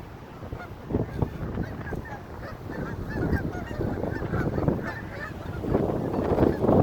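A flock of geese honking: many short calls overlapping, growing louder near the end.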